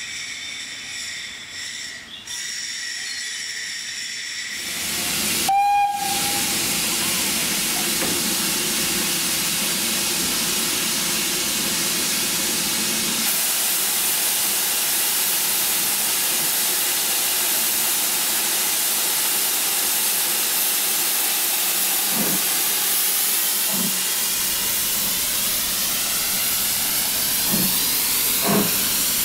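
Steam hissing loudly and steadily from BR Standard Class 2MT 2-6-0 steam locomotive 78022 standing at the platform, starting about four seconds in. A few low thuds come in near the end.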